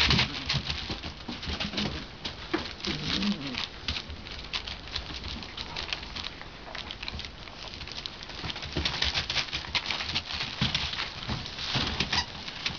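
Rough collie puppies scrabbling and wrestling on newspaper, the paper rustling and crinkling irregularly under their paws. There are a few short, low puppy grunts near the start and about three seconds in.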